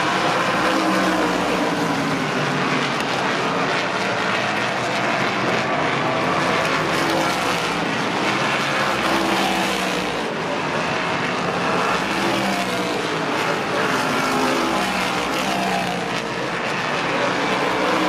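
Engines of a field of modified race cars running around a short oval track: a loud, continuous din, with engine notes rising and falling as the cars circle.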